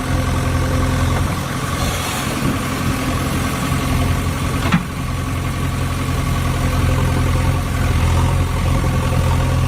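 An engine idling steadily, with one sharp click about five seconds in.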